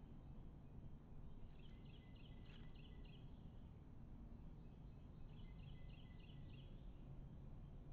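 Low steady hiss, broken twice by a short bout of faint, rapid high chirps, about five a second, from a small animal calling at night.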